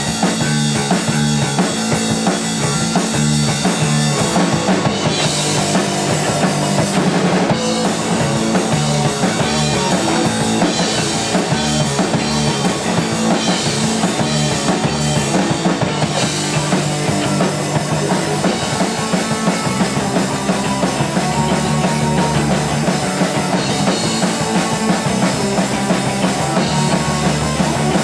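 Rock band playing live: drum kit, distorted electric guitar and electric bass together, with steady driving drums and a heavy bass line.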